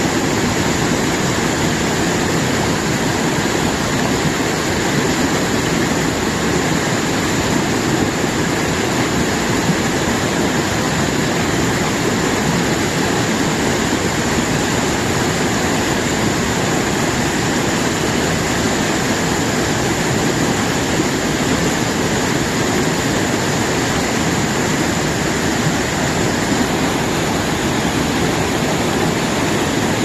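Mountain stream water rushing and splashing over boulders in a small cascade, a loud, steady, unbroken rush.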